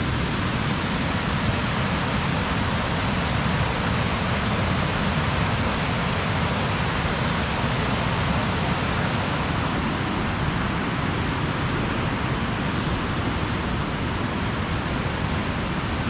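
Steady, loud rush of flowing water.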